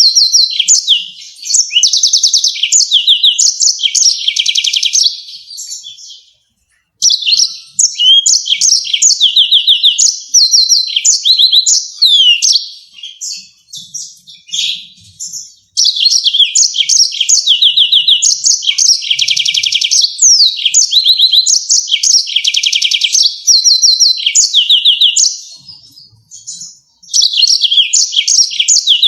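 Yellow-fronted canary singing: long bouts of rapid, high-pitched trills and sharp rolling notes, broken by brief pauses about six, fifteen and twenty-six seconds in.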